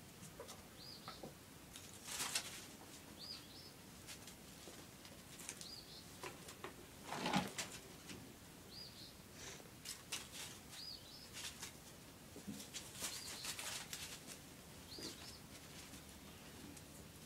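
Kittens scampering and scuffling on a gravel and dirt floor, making faint scratchy rustles, the loudest about seven seconds in. A short high chirp repeats every two seconds or so.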